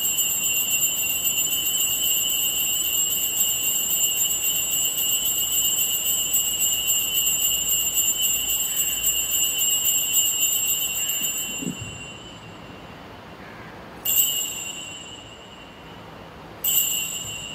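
Altar bells ringing steadily through the elevation of the chalice at the consecration, dying away about twelve seconds in. Then two single rings a few seconds apart as the priest bows in reverence.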